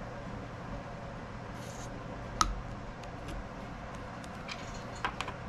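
Small handling sounds while a model engine's fuel tank is topped up from a syringe: one sharp click about halfway through and a few faint taps near the end, over a steady low hum.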